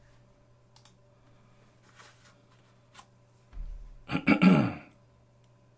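Quiet room with a steady low electrical hum and a few faint clicks; about four seconds in, a low bump followed by a short vocal sound from a man, like a throat clearing.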